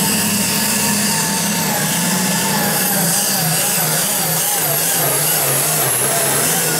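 International Harvester light limited super stock pulling tractor's turbocharged diesel engine running flat out under load, dragging the weight sled. Its note wavers up and down through the middle, with a high whine above it.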